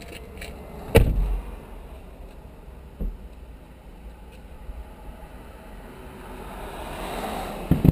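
Fireworks bursting: a loud boom about a second in, a smaller one about two seconds later, and a quick cluster of bangs near the end, over a steady low rumble.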